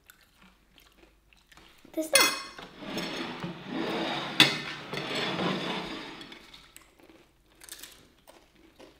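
Metal spoon scraping and clinking on a ceramic plate, with one sharp clink a little before halfway.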